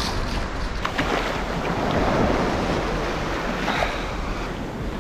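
Small ocean waves washing up and rushing back over the sand at the water's edge, with wind on the microphone.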